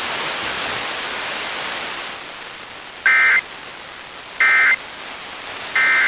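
Steady hiss that drops about two seconds in, then three short bursts of the Emergency Alert System's SAME digital data tones, about a second and a half apart: the end-of-message code that closes the alert.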